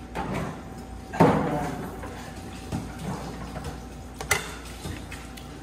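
Tableware being handled during a meal: a few soft knocks, a louder one just over a second in, and a sharp clink a little after four seconds, over a faint steady hum.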